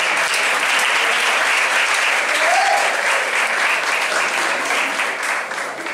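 Audience in a hall applauding, a dense steady clapping that thins out near the end.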